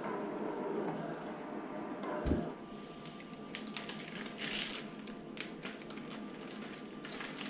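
Thin window tint film being peeled off its liner and handled by hand: irregular crinkling and crackling with sharp little clicks, loudest in a brief crinkle about four and a half seconds in, after a dull thump a little over two seconds in.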